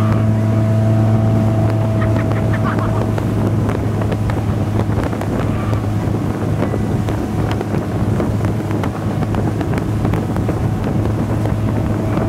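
Motorboat engine running steadily at speed while towing a tube, a constant low drone, with the wake rushing and wind buffeting the microphone.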